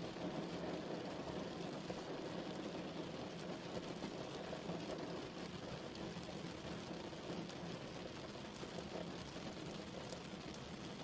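Steady rain falling: an even hiss with scattered drop patter.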